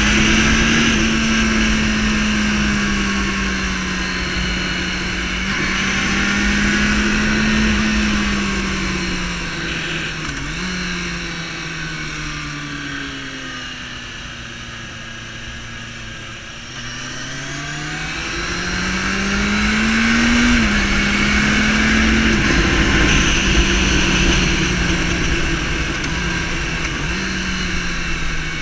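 Sport motorcycle engine running under way, heard from the bike with wind rushing over the microphone. The engine note sinks as the bike slows around the middle, then climbs again, with a sudden dip in pitch as it shifts up about two-thirds of the way through.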